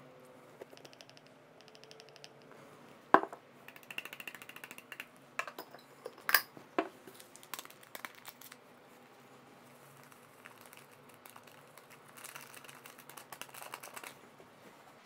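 Food preparation at a mixing bowl: a few sharp knocks and clicks, the loudest about three seconds in, then crinkling of a paper baking-powder sachet being opened and emptied near the end.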